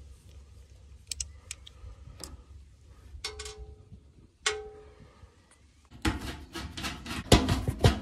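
Metal tools clicking and tapping on the blower's sheet-metal housing and bracket as the bolts come off. Two taps ring on briefly. From about six seconds comes a much louder run of quick, irregular clanks and rattles.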